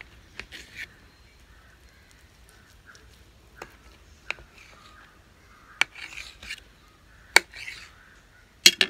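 Knife cutting through a fruit cake on a ceramic plate: about six sharp clicks of the blade against the plate, the loudest two near the end, with short rasping scrapes as the blade saws through the crumb and nuts.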